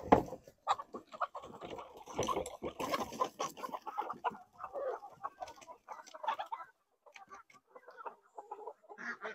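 A flock of chickens clucking, with wings flapping as hens hop down the coop ramp. The calls are thickest for the first six seconds or so, then thin out to scattered clucks.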